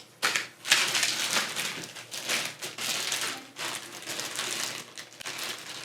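Packaging being handled as a new vacuum is unboxed: an irregular run of crinkling and rustling from paper and plastic wrapping.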